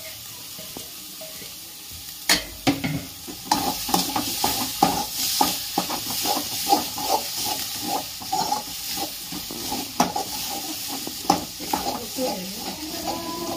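Metal spoon stirring and scraping thick baingan bharta around a metal kadhai over a light sizzle, mixing in freshly added green coriander leaves. It starts with a couple of sharp knocks against the pan about two seconds in, followed by quick, repeated scraping strokes.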